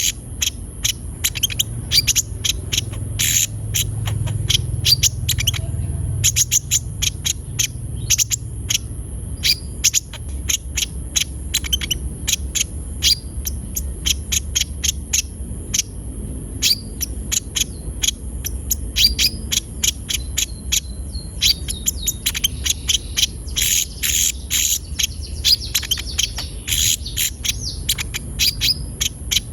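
Konin (kolibri ninja sunbird) singing a fast, busy song of short, sharp high chips, several a second, with no let-up. It is a lure recording meant to prompt other konin to start singing.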